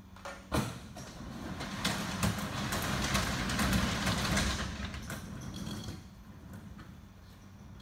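A knock, then about five seconds of rattling, scraping metal noise as hardware is worked by hand at the front of a bottom-dump trailer during a tarp-arm install, swelling and then fading.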